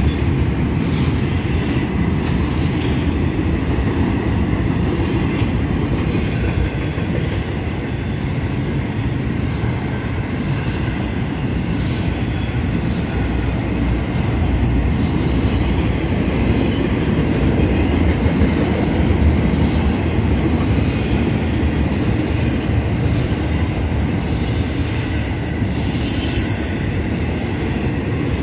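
Florida East Coast Railway intermodal freight cars rolling past: a steady rumble of steel wheels on the rails from flatcars carrying containers and highway trailers, with brief high-pitched wheel squeals, the clearest near the end.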